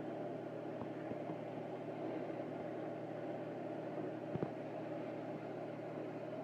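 A steady low mechanical hum, with a few faint taps, the clearest about four and a half seconds in.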